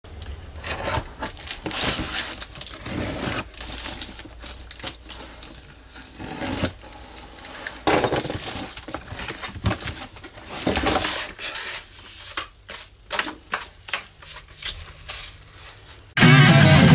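A cardboard box being unpacked by hand: a blade cutting the packing tape, then cardboard flaps and packing rustling and scraping in irregular bursts. Loud heavy rock music comes in suddenly near the end.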